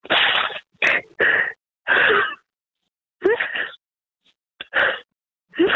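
A young man crying over a phone line: about six short bouts of gasping, sobbing breaths with a few rising cries, muffled by the phone's narrow sound.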